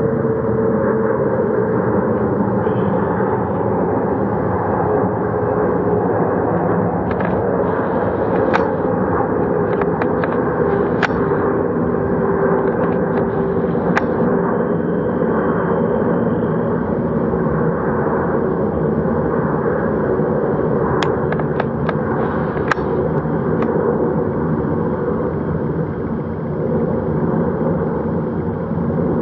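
Airbus A350-900's Rolls-Royce Trent XWB turbofans at climb power after takeoff: a loud, steady jet roar with a humming tone that slowly drifts lower. Scattered sharp cracks sound through the roar, and it eases slightly near the end.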